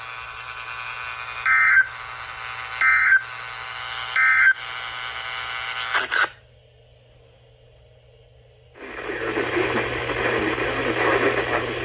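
NOAA Weather Radio receiver hiss with three short bursts of EAS SAME end-of-message data tones, about a second and a half apart. The signal then drops out for a couple of seconds before loud rough static comes in.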